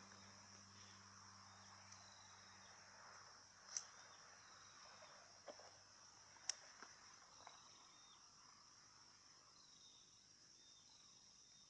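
Near silence with faint, steady, high insect chirring, broken by a few sharp clicks, the loudest about four and six and a half seconds in.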